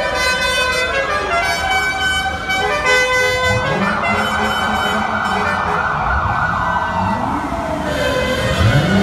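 Several novelty siren horns on rally cars sounding at once, with overlapping wailing sweeps that rise and fall. Deep whooping glides rise from low pitch several times, from about a third of the way in.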